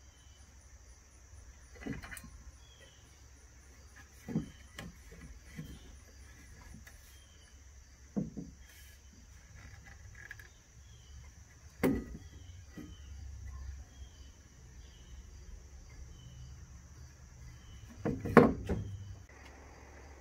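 A metal spirit level and plywood boards being handled and set down, giving a handful of short knocks and clunks a few seconds apart, the loudest cluster near the end. Underneath, insects drone steadily at a high pitch.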